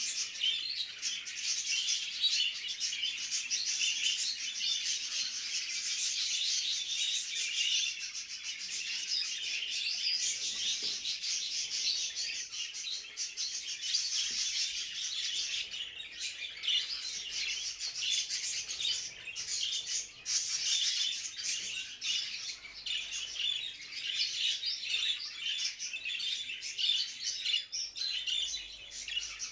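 Many budgerigars chattering and warbling at once: a dense, continuous, high twittering with no pauses. It is the mating chatter of budgies kept in breeding cages.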